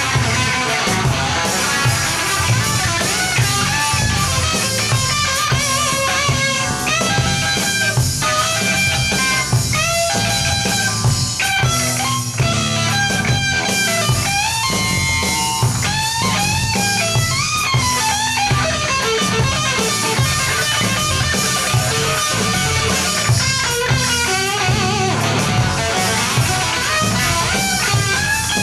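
Live hard rock band playing loud: a lead electric guitar plays quick runs of notes with bends over a drum kit.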